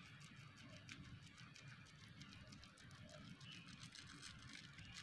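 Near silence, with faint scattered soft ticks from a plastic-wrapped knife pressing down through a chilled block of pressed rice.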